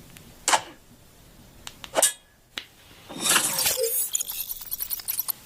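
Packaging and phone items being handled during an unboxing: two short swishes, then from about three seconds in a busy run of light clicks and clinks with a high ringing edge.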